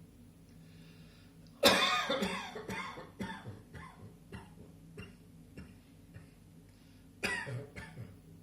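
Coughing: one loud cough about two seconds in, followed by several weaker coughs, then another loud cough near the end, over a faint low hum.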